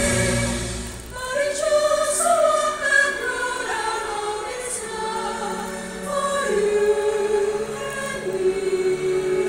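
Choir singing a slow sacred piece in long held notes that move slowly from pitch to pitch. A low bass under the voices drops out about a second in.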